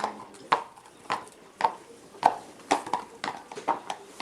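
A newly shod horse's hooves clip-clopping on hard ground at a walk, with about two uneven hoof strikes a second.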